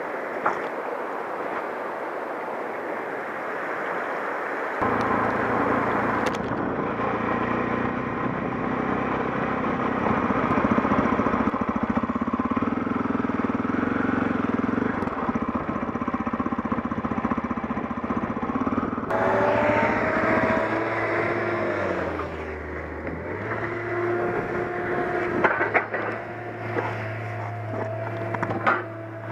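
A river flowing over stones, then, about five seconds in, a single-cylinder KTM 640 Adventure motorcycle engine running as the bike rides along a gravel logging road. Near the end the engine slows and settles to a steady idle as the bike stops.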